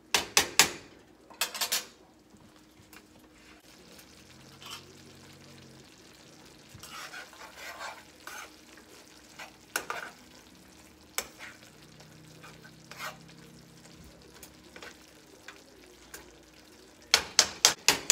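Spoon stirring and scraping a simmering cream sauce in a skillet as the spinach wilts, with a faint sizzle from the pan. There are sharp clacks of utensils against the pans just after the start and a quick run of them near the end.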